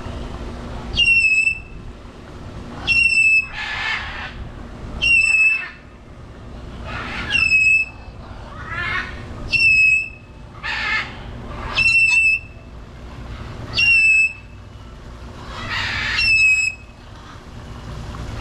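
Parrots calling: a short, clear whistled note repeated about every two seconds, each with a slight downward hook at the end, alternating with harsh, raspy squawks.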